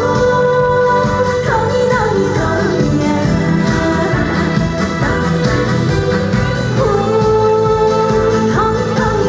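Korean trot song playing loud over a PA: a backing track with a steady bass line under a melody of long held notes that slide into pitch, one at the start and another about seven seconds in.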